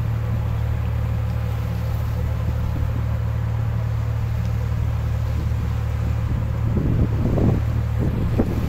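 A fishing boat's diesel engine running with a steady low drone, with wind on the microphone. Some irregular, louder noise joins in about seven seconds in.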